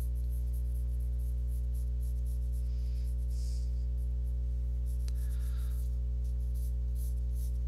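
Mechanical pencil sketching light strokes on sketchbook paper, a soft scratching that comes and goes. Under it runs a steady low hum, the loudest sound.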